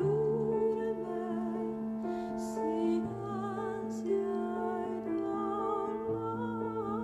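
Slow background music: low notes held like a drone under a melody that wavers with vibrato, in the manner of sung or operatic music.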